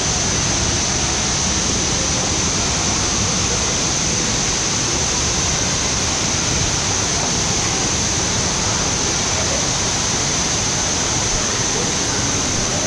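Steady rush of running and splashing water from the pools and water features of a water park, a continuous even noise with no breaks.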